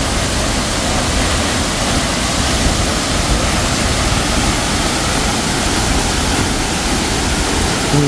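Wachirathan Waterfall's heavy plunge onto rocks and into its pool, heard close: a loud, steady rush of falling water.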